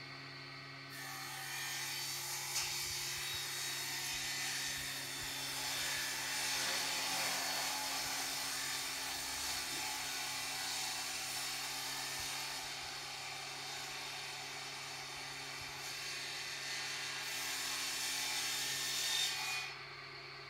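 Sandpaper scraping across a wooden table top as it is sanded, a steady scratchy rasp that starts about a second in and cuts off near the end.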